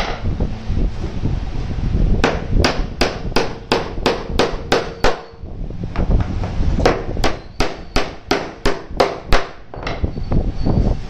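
Hammer driving nails through a wooden strip into plywood: two quick runs of about ten sharp blows each, roughly three a second, with a short pause between.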